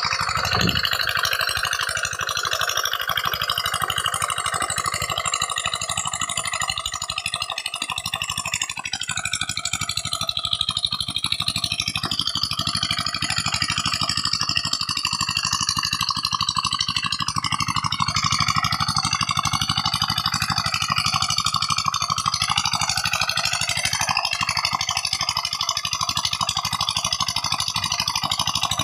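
Small diesel engine driving an irrigation water pump, running steadily at an even speed, with water gushing from the pump's outlet pipe.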